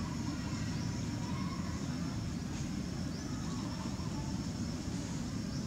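Steady low outdoor rumble, with a faint steady high whine above it.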